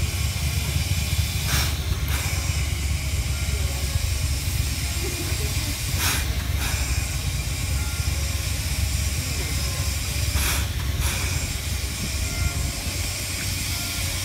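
Steam hissing from a JNR Class C11 steam tank locomotive (C11 207) standing in steam, over a steady low rumble, with three louder bursts of hiss about every four and a half seconds.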